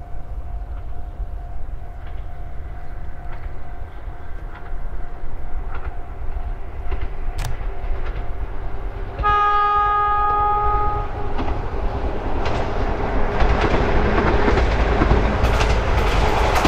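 Toyama Chiho Railway electric train approaching. Its horn sounds once for about two seconds near the middle, then the rail noise and the clicking of the wheels over the rail joints grow steadily louder as it nears.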